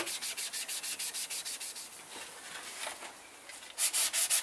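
Hand sanding of a primed plastic motorcycle fairing panel with sandpaper, keying the primer ready for paint: even back-and-forth strokes at about five a second, fading down for a moment and then coming back louder near the end. A brief sharp knock right at the start is the loudest sound.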